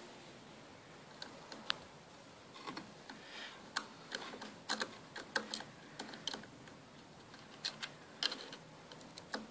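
Irregular light clicks and taps of a screwdriver and small screws against the plastic housing and new PC board of a solar electric fence energiser, as the board is screwed in.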